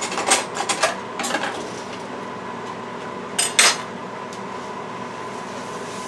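A metal table knife clattering as it is handled, with several rattling clicks in the first second and a half, then set down on the countertop with two sharp clacks about three and a half seconds in. A steady hum runs underneath.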